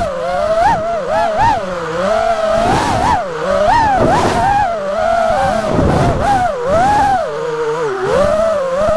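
FPV quadcopter's brushless motors whining, the pitch rising and falling continually with throttle as the drone is flown.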